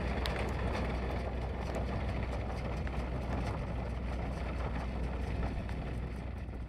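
Tractor engine running steadily under load while pulling a New Holland round baler, with the baler's machinery working along with it as it picks up hay.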